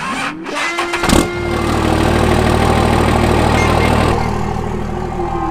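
An engine cranked and started: it catches about a second in and settles into a steady run.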